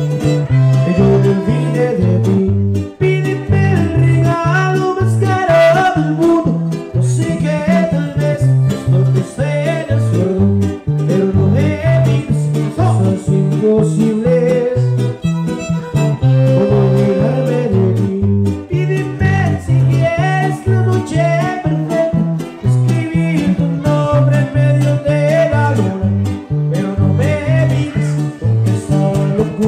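Huasteco string trio playing an instrumental break: a violin carries the melody over steadily strummed chords from a small jarana-type guitar and a larger guitar.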